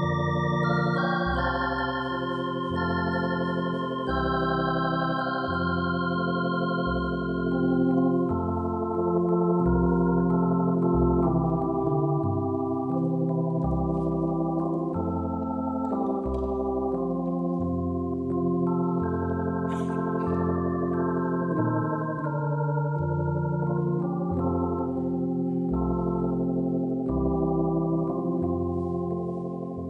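Slow, quiet organ music: long sustained chords held over a low bass note that changes every second or two.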